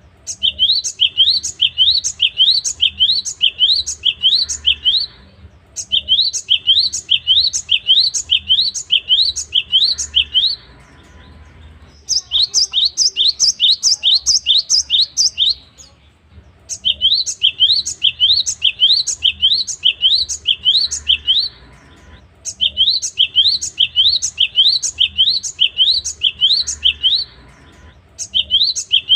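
Cinereous tit (gelatik batu) singing: fast runs of sharp rising notes, about five a second, in phrases of four to five seconds with short pauses between. The phrase in the middle is pitched a little higher.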